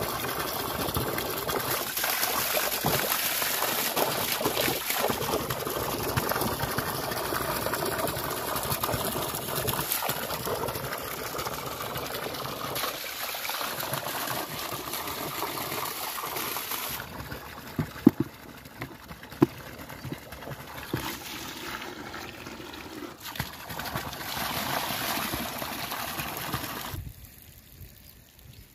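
Water gushing from a plastic hose and splashing into a muddy pool, a steady pour, with hands working in the stream and two short sharp sounds about two-thirds of the way in. The pouring sound drops away suddenly near the end.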